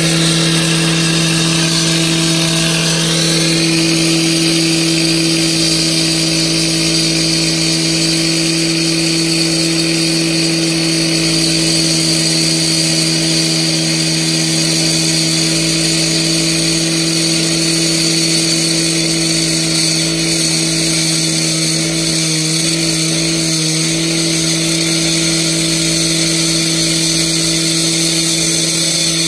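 Two-stroke petrol cut-off saw held at full throttle, its water-fed diamond blade cutting through the tiled concrete wall of a spa. A steady high engine note under a high grinding whine from the blade that rises over the first few seconds and then holds.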